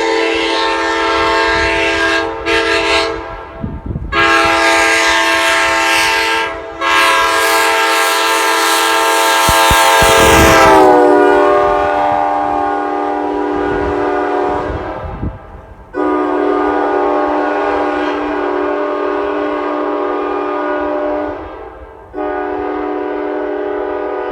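Nathan Airchime K5LA hybrid five-chime train horn (bells 1, 2, 3a, 3a, 4a) blowing its chord in a series of blasts, short and long. Partway through, one long blast sags slightly in pitch.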